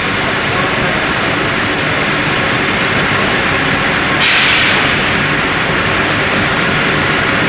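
MAN rotary offset printing press running at speed: a loud, steady mechanical noise throughout. About four seconds in there is a sudden burst of hiss that fades within about a second.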